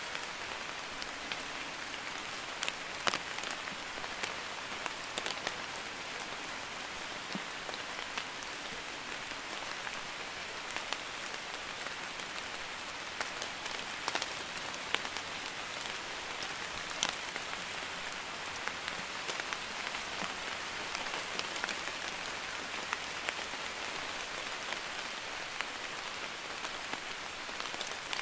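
Light rain (drizzle) falling steadily on a wet surface, an even patter with sharper single drops ticking now and then.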